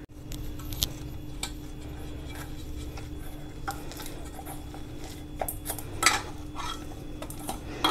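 Hands kneading stiff thekua dough of flour, ghee and sugar in a stainless steel bowl: dough pressed and rubbed against the metal, with a few light knocks against the bowl scattered through.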